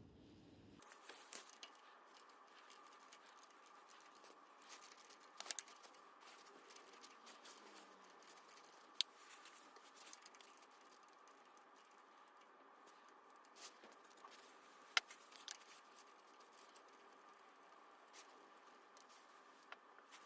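Faint, scattered light clicks and taps of small handling noises over a quiet hiss, with two sharper clicks about nine and fifteen seconds in.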